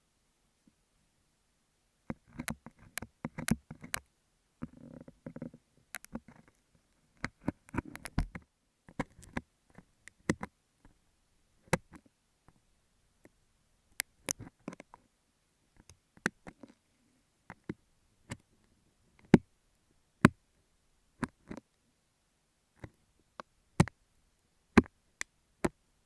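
Close-up ASMR triggers on an earphone microphone: a beeswax sheet is scratched and rustled with quick taps, then comes a series of separate sharp clicks, about one a second.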